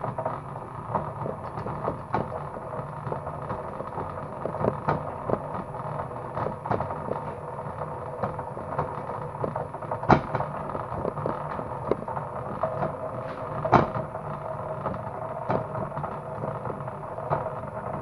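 Motor-driven cable stripping machine running with a steady hum while wire is fed through, with irregular clicks and rattles and two louder knocks about ten and fourteen seconds in.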